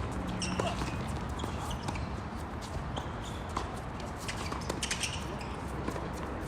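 Wind rumbling on the microphone during outdoor tennis play, with scattered short high squeaks and a few light knocks.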